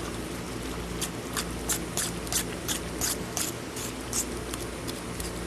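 Spoon stirring potato salad in a bowl, making quick light scraping clicks about three a second for a few seconds, over a steady low background hum.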